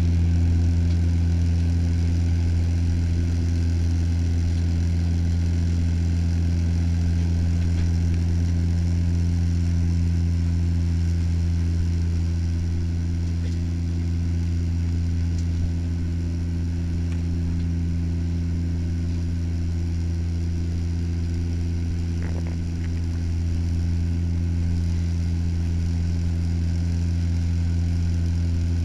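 Steady drone of a turboprop airliner's propellers and engines heard inside the cabin on descent: a deep, even hum with a few steady tones above it and a rushing hiss.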